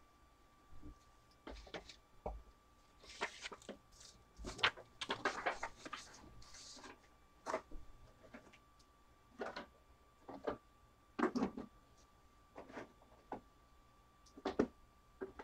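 Scattered small clicks, taps and short rustles at irregular intervals, with a faint steady high-pitched hum underneath.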